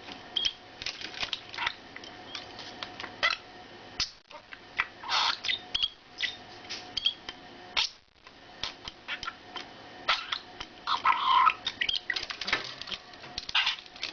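Pet bird chattering quietly: a rapid string of short chirps, clicks and warbles, busiest about eleven seconds in.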